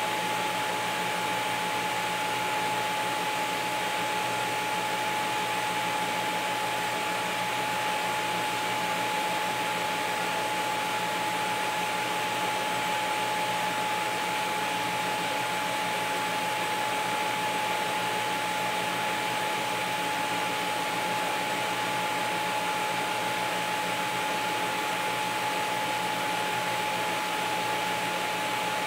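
TIG welding arc from a Miller Dynasty 350 on stainless sanitary tubing, run at a set current with no pulse: a steady hiss with a constant high whine.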